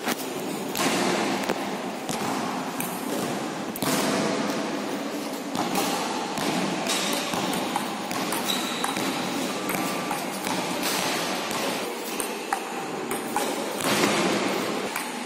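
Table tennis rally: the ball clicking off the bats and bouncing on the table in sharp, repeated ticks, over steady background noise.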